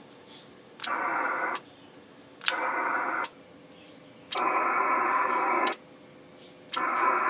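Yaesu FTdx3000 HF transceiver's receiver hiss coming from its speaker, cutting out each time the headset trigger switch keys the radio to transmit and coming back on release. There are four stretches of steady hiss with silent gaps of about a second between them, and a click at each switchover.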